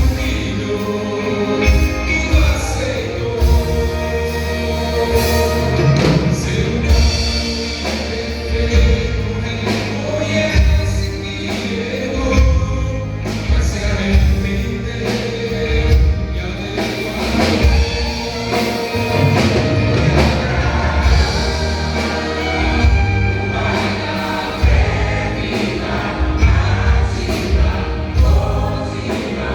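A vocal group singing a gospel song together, with a band accompaniment that keeps a steady beat.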